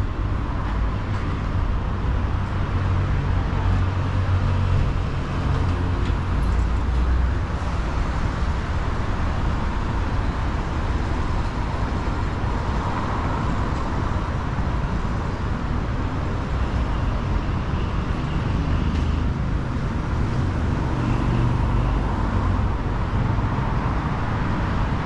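Steady city street traffic: a continuous low rumble of car engines and tyres passing.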